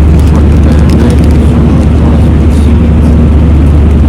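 Airliner cabin noise heard from a seat over the wing: a loud, steady low rumble of the engines and rushing air, unchanging throughout.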